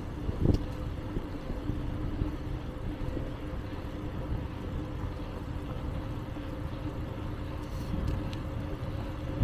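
Bicycle ride heard from the handlebars: a steady low rumble of tyres rolling on the trail, with a faint steady hum and a single knock about half a second in.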